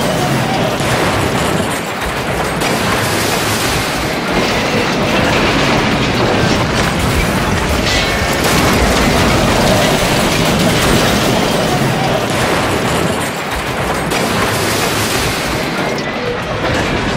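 Train-wreck sound effects: a loud, continuous din of rail cars rumbling and crashing, with metal and wood grinding as the cars derail and pile up.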